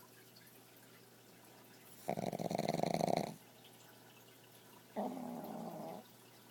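Pug snoring while asleep: two snores about three seconds apart. The first, about two seconds in, is louder and runs just over a second with a rapid fluttering rattle; the second, near the end, is softer and about a second long.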